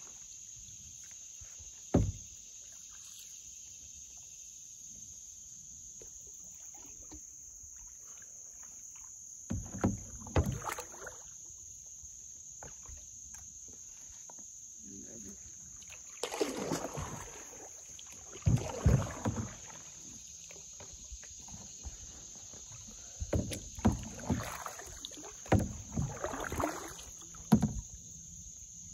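Canoe paddle strokes pulling and splashing in the river, coming in several short bursts, with one sharp knock about two seconds in. Under them runs a steady, high insect drone.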